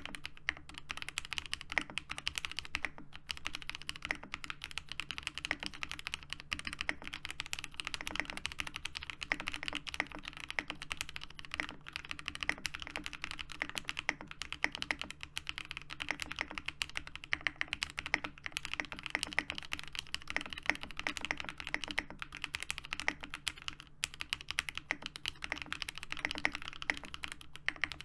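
Fast, continuous typing on a Geonworks Frog TKL mechanical keyboard with lubed and filmed Zepsody Bluebonnet switches, an aluminum leaf-spring plate and PBT keycaps. The keystrokes come in a dense, even run with only brief pauses.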